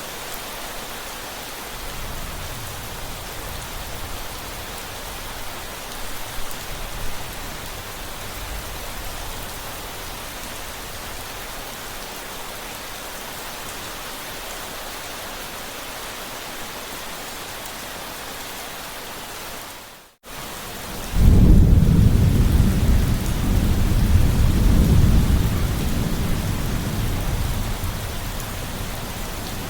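Steady rain falling. About two-thirds of the way through, the sound cuts out for a moment, then a long, loud, deep rumble of thunder comes in and slowly fades under the rain.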